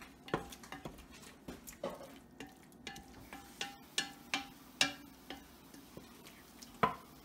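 A spoon stirring steamed broccoli in an enamel-lined pot: irregular knocks and scrapes of the spoon against the pot about once a second, with one sharper knock near the end.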